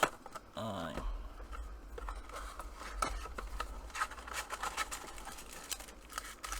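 Small clicks, scrapes and crinkles of a trading-card blaster box and its packs being handled and opened on a table, with a low handling rumble underneath. A brief vocal sound about half a second in.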